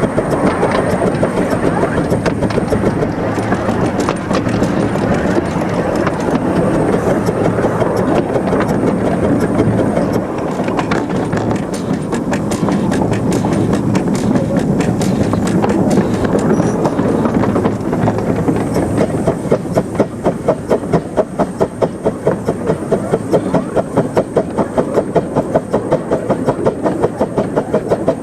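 Krupp 4-6-2 Pacific 15-inch gauge steam locomotive running with its train, heard from the footplate: a steady rumble that settles, about two-thirds of the way through, into even rhythmic beats at about three or four a second.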